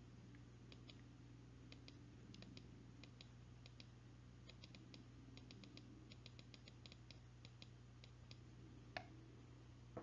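Near silence: faint computer keyboard and mouse clicking, irregular and often in pairs, over a low steady hum, with one sharper click about nine seconds in.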